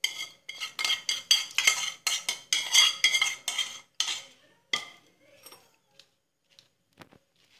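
Metal spoon clanking and scraping against the inside of an aluminium saucepan, several ringing strikes a second for about four seconds, as thick boiled flaxseed gel is scraped out into a strainer. One more loud clank follows, then only faint taps of the spoon in the strainer.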